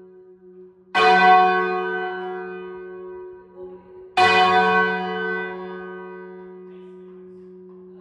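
Single church tenor bell, 15-0-8 tuned to F#, rung full circle on its wheel, strikes twice: about a second in and again about three seconds later, a handstroke and a backstroke. Each stroke rings on and slowly dies away.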